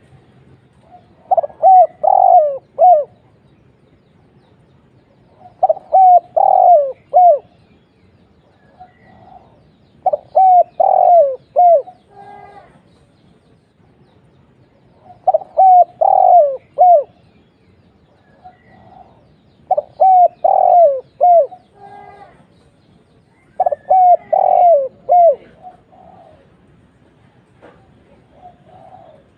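Spotted dove (tekukur) cooing: about six phrases, one every four to five seconds, each a short run of four or five throaty falling coos.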